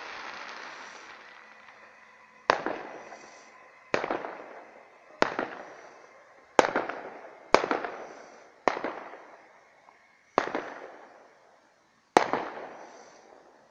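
Fireworks going off: eight sharp bangs at irregular gaps of about one to two seconds, each dying away in an echo. In the first two seconds a steady rushing noise fades out.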